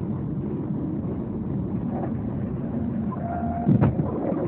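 Steady road and engine noise heard from inside a moving car, broken about three and a half seconds in by a loud, sudden bang.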